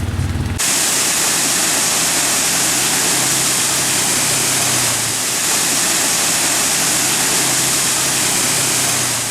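A vehicle engine running cuts off abruptly under a second in, replaced by the steady, loud rush of a storm-fed waterfall.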